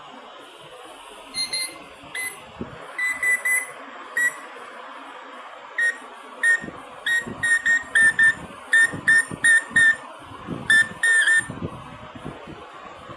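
A pet bird imitating a microwave oven's beeps: about twenty short high beeps, some single and some in quick runs, a few of them slightly bent in pitch, over a steady faint hiss.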